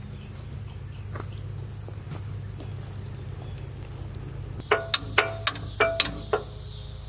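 Crickets chirring steadily throughout; about two-thirds of the way in, about six sharp metallic clinks with short ringing follow in quick succession, like steel hand tools knocking together.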